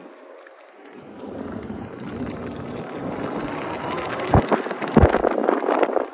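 Wind rushing over the microphone as an Inmotion V12 electric unicycle rolls along a concrete path, building after about a second. Two sharp thumps come about four and five seconds in.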